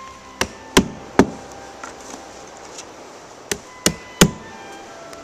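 Hand hammer nailing cedar roof shingles: two sets of three sharp strikes, about a third of a second apart, with a pause between the sets.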